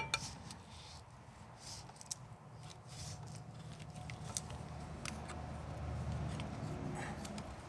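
Faint scattered clicks, taps and scrapes of hand tools and parts being handled at the tractor's oil filter, over a low steady hum.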